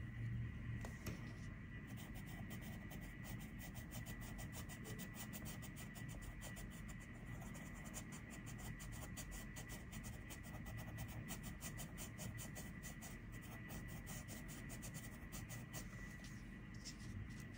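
Coloured pencil shading on paper: quick, repeated scratchy strokes that start about two seconds in and carry on steadily.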